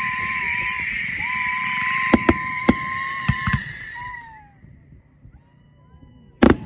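Firework hissing steadily with a few sharp cracks, dying away about four seconds in, then a single loud bang near the end.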